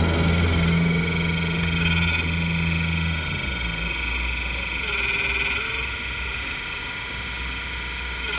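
Radio-controlled hydraulic excavator's pump and electric motors humming steadily, with a faint high whine over the top. The hum drops to a lower pitch about three seconds in.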